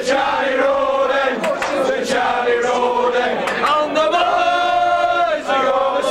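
A crowd of men singing a football chant together, loud throughout, with one long held note from about four seconds in.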